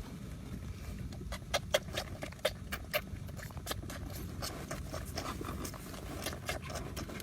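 A small animal lapping water: a run of short wet clicks, irregular at about two to four a second, over a low steady rumble.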